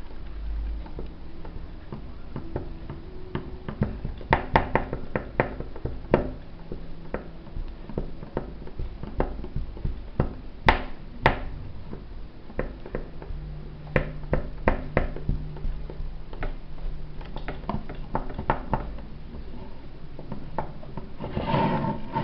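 Irregular light clicks and taps of hands working softened wax onto plaster dental models in an articulator, over a faint low hum.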